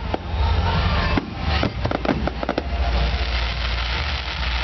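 Aerial firework shells bursting in a dense finale barrage, with overlapping booms under a steady crackle. A rapid cluster of sharp cracks comes a little over a second in.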